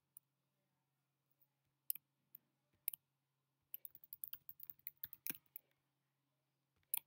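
Faint computer keyboard typing: a few separate key taps, then a quick run of keystrokes from about four to five and a half seconds in, and a couple more taps near the end.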